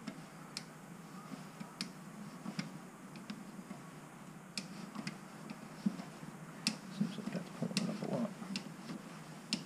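Sparse, sharp clicks and ticks, irregularly spaced about one a second, from a glue-on paintless dent puller being worked on a dented motorcycle fuel tank. Faint rustling comes in near the end.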